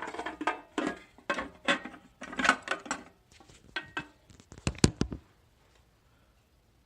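Hard metal and plastic parts of an electronic safe clattering and knocking as the casing is pulled and worked loose, a quick irregular run of knocks with the sharpest about five seconds in.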